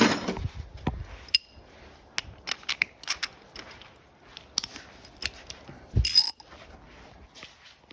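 Metal hand tools being handled: irregular clicks and clinks of sockets and a half-inch-drive ratchet, with a louder ringing metal clink about six seconds in.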